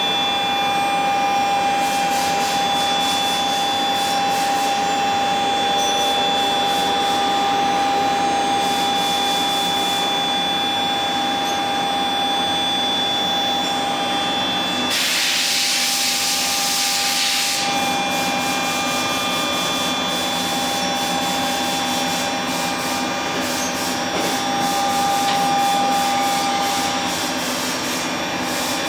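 4-axis CNC vertical machining center running a cut: a steady high spindle whine over continuous scraping cutting noise. About halfway through, a loud hiss lasts for a few seconds while the whine drops out.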